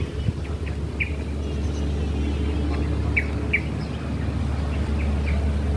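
Small birds chirping: short, scattered chirps, two in quick succession a little past the middle and two more near the end, over a steady low rumble.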